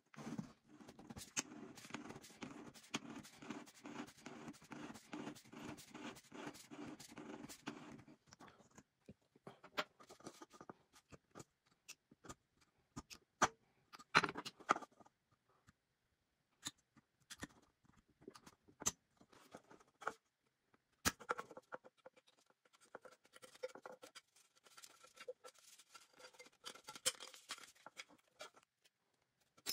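A steel scribing point scratches around the aluminium lid of a drink can in a quick run of scraping strokes for about eight seconds. After that come scattered light clicks, taps and scrapes of small hand tools on the thin can metal.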